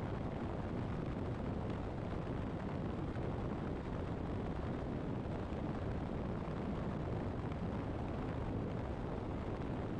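Steady wind rush and road noise from a motorcycle riding at highway speed, the wind rumbling on the camera microphone.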